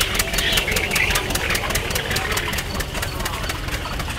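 Two-cylinder John Deere tractor engine popping out a steady, rapid beat under load as it pulls the sled. The beats fade near the end, under faint crowd murmur.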